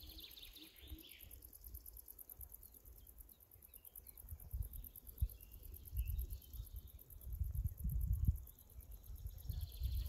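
Birds chirping and a steady, high insect chirring, with low wind rumble buffeting the microphone in gusts from about four seconds in, the loudest sound.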